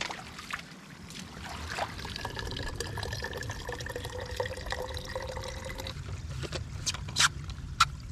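Filtered water trickling from a hand-squeezed water filter into a plastic water bottle, a steady pour that stops about six seconds in. It is followed by a few sharp clicks of the bottle being handled near the end.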